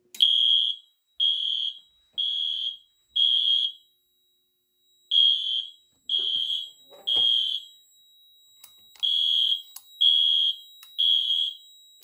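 Wheelock MIZ 12-volt fire alarm horn, driven by a Fire-Lite MP-12 panel, sounding a loud, high-pitched beeping alarm, set off by the test button of the zone-one smoke detector. The beeps come about once a second in groups, mostly of three, with short pauses between: the temporal-three evacuation pattern. A few faint clicks come near the end as panel buttons are pressed.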